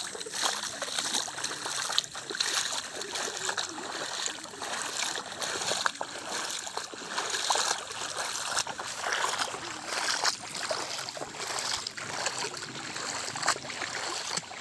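Shallow floodwater on a path splashing underfoot as someone wades through it, with water running and trickling. Sharp splashes come at irregular intervals over a steady watery hiss.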